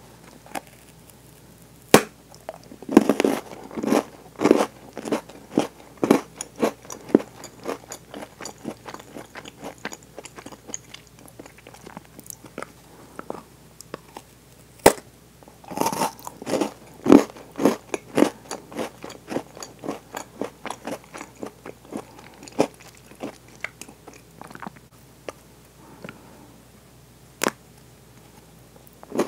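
Close-miked bites into a Milka Oreo chocolate bar, each a sharp snap, followed by crunchy chewing of the chocolate and cookie. Three bites, about two seconds in, about fifteen seconds in and near the end, each followed by a run of chewing.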